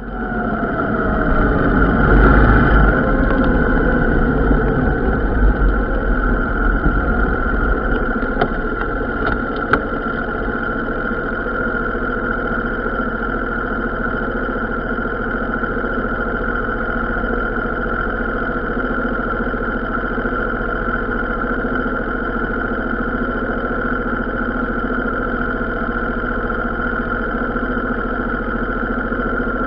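A vehicle engine running. It is louder, with a deep rumble, for the first several seconds, then settles to a steady idle.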